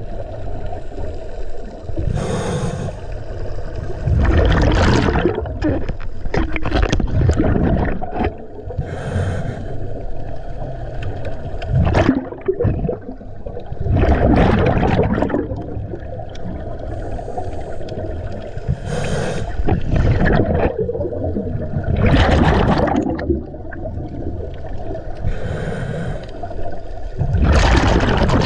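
Scuba diver breathing through a regulator underwater: each breath is a hissing draw followed by a loud bubbling rush of exhaled bubbles, repeating every few seconds.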